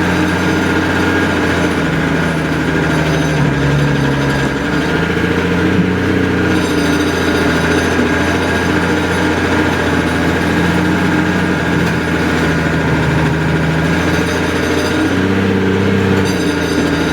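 An engine running steadily and loudly, its pitch shifting a little a few times.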